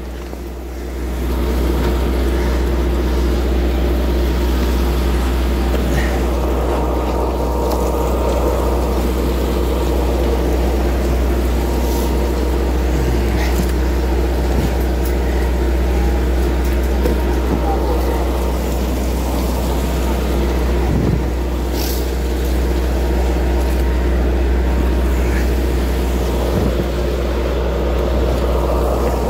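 A fishing trawler's diesel engine running at a steady drone, with a few short knocks and clicks from the fish being handled and cut.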